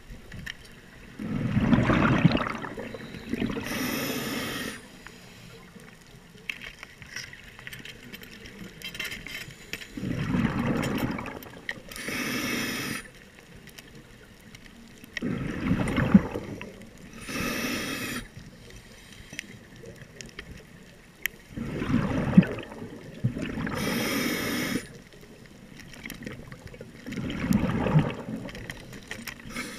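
Diver breathing through a scuba regulator underwater: a long draw of air, then a gush of exhaled bubbles, repeating about once every six seconds for five breaths.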